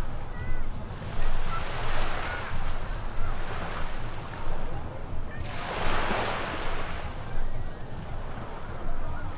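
Small ocean waves breaking and washing up the beach in repeated rising and falling swells, the biggest wash about six seconds in. Wind rumbles low on the microphone underneath.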